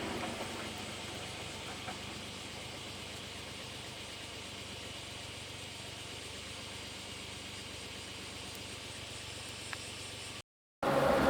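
A vehicle engine idling steadily, a low even hum. It cuts off abruptly to silence near the end.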